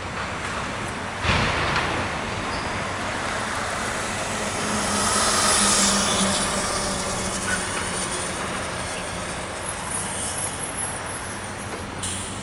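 Heavy demolition machinery tearing down a steel-and-concrete stadium deck. An engine hums steadily, there is a crash a little over a second in, and a louder stretch of grinding, high-pitched noise comes around the middle.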